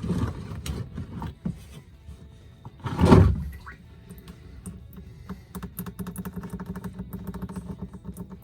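Tools knocking and clanking against a stuck oil filter as it is worked loose, with one loud clunk about three seconds in and a quick run of clicks near the end, over background music.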